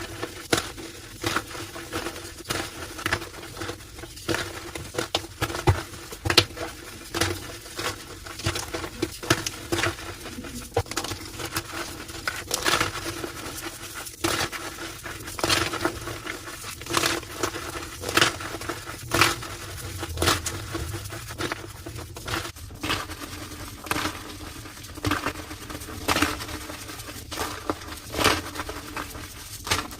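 Homemade gym chalk slabs being crushed, a continuous run of irregular crisp crunches and squeaks, several a second.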